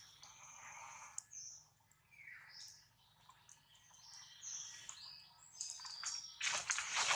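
Forest birds chirping and whistling in short high calls, one call gliding down in pitch about two seconds in. A short burst of rustling noise comes near the end.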